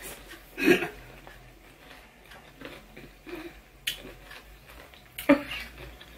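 Quiet room tone broken by two short vocal sounds, one about a second in and one near the end, and a single sharp click around the four-second mark.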